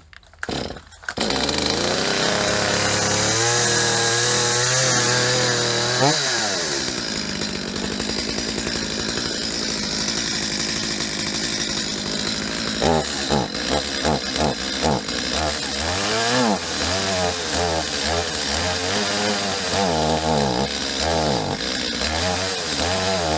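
Stihl MS250 two-stroke chainsaw pull-started from cold, catching about a second in and running high before dropping to a steady idle about six seconds in. From about 13 seconds the throttle is blipped again and again and the engine surges up and falls back unevenly instead of revving out: it sputters and won't take throttle, a fault the owner puts down to fuel starvation and a carburetor needing cleaning and adjustment.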